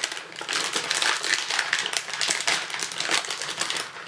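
Crinkly plastic snack bag rustling and crackling continuously as it is handled and pulled at to open it.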